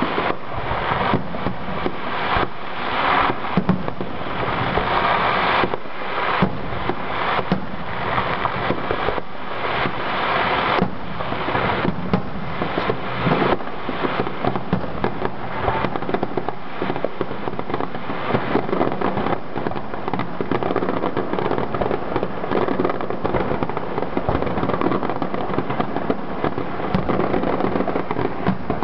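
Fireworks display: aerial shells bursting in a rapid, unbroken barrage of bangs and crackles.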